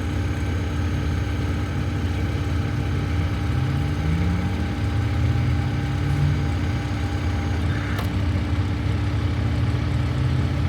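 49 hp Yanmar diesel engine of a vacuum excavator running steadily, with a short rising tone about four seconds in and a single click near eight seconds.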